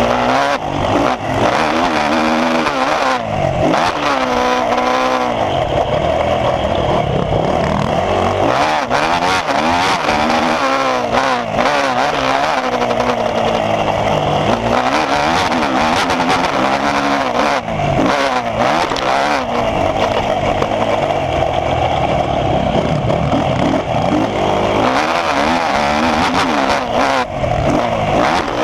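Motocross dirt bike engine heard from on the bike, revving up and dropping back over and over as the rider accelerates, shifts and brakes around the track.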